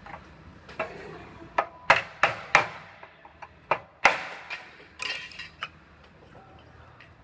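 Irregular knocks and taps of a hand tool on sheet-metal body panels as a replacement rocker panel section is worked into place, a dozen or so over several seconds, some leaving a short metallic ring.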